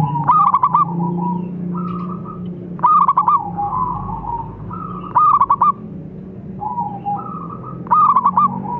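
Zebra dove (perkutut) cooing: four phrases about two and a half seconds apart, each a held note followed by a quick run of four or five clear, ringing coos.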